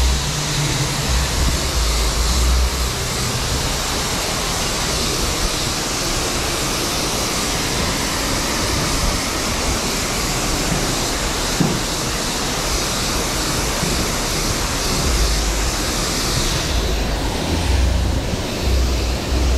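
High-pressure wash lance at a self-service car wash spraying a steady, loud hiss of water onto a road bike, with intermittent low rumbling underneath. The hiss thins a little near the end.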